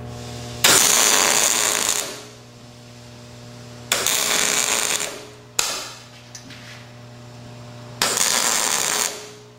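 Wire-feed welder striking three short welds on a steel trap's jaw lugs, each about a second of crackling arc, filling gaps and building up the lugs. A steady hum runs underneath.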